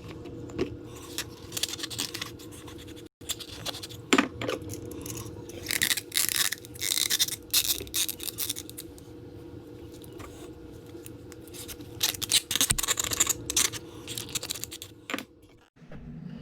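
Handling noise: bursts of scratching and scraping with scattered clicks, over a steady low hum.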